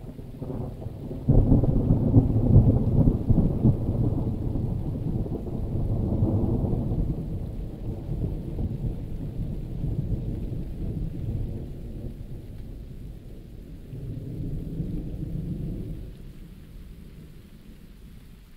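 A long roll of thunder that breaks suddenly about a second in, rumbles on with several swells and dies away near the end, over steady rain.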